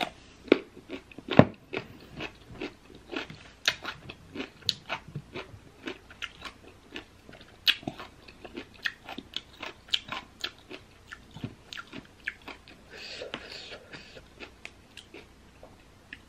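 A person crunching and chewing crisp green baby mango slices: many sharp, irregular crunches, a few a second. There is a short hiss about thirteen seconds in.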